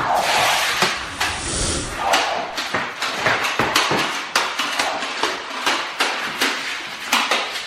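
A rapid, irregular run of sharp knocks and clatters, with a rustling scuffle over the first two seconds.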